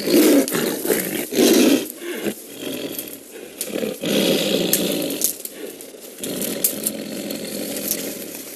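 Siberian tiger caught in a snare, roaring: two loud roars in the first two seconds, then further rough roaring at a lower, varying level.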